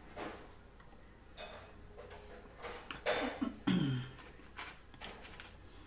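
Close-miked drinking from a glass soda bottle, then several short clicks and taps as the glass bottle and its screw cap are handled, with a brief breathy sound about three seconds in.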